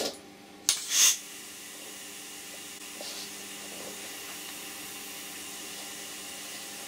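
Compressed air from a paintball HPA tank hissing steadily as it leaks from a 3D-printed air-through stock on a paintball marker, after a short loud burst of air about a second in. The owner puts the leak down to old, damaged O-rings at the front fitting.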